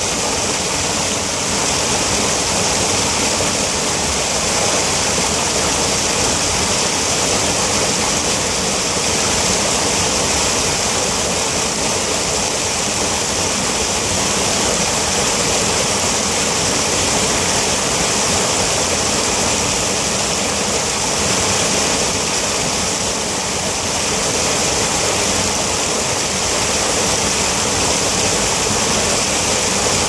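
Small creek waterfall pouring over a rock ledge and rushing through the rocky rapids below: a steady, unbroken rush of water.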